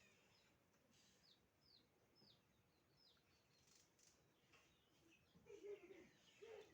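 Faint bird chirping over near silence: a run of short, quickly falling chirps in the first half, with a few lower calls near the end.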